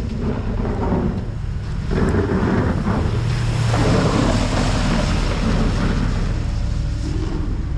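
Ford Super Duty pickup with a V-plow driving past close by, its engine running as the steel blade scrapes along the pavement and pushes heavy wet snow. It grows louder as the truck comes near and is loudest about four seconds in.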